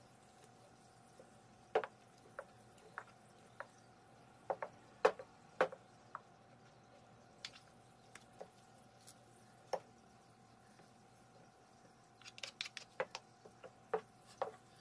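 Wooden spatulas stirring thick glutinous-rice gochujang in a large stainless steel bowl: irregular sticky squelches and light clicks of the spatulas against the bowl, with a quick run of clicks about twelve seconds in.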